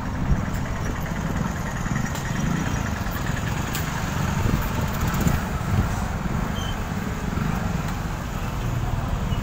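Steady low rumble of a vehicle on the move through traffic, with road and wind noise and a few sharp clicks.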